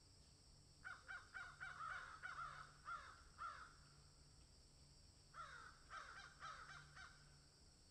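Faint bird calls: two runs of short calls, each falling in pitch. The first run has about ten calls in quick succession, and a shorter run of about five follows after a pause. A steady high hiss lies under them.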